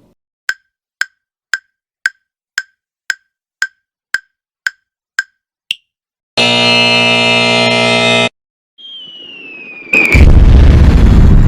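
Quiz-video sound effects. A countdown clock ticks about twice a second, eleven times, the last tick higher. A time-up buzzer then sounds for about two seconds. It is followed by a falling whistle and a loud noisy burst near the end.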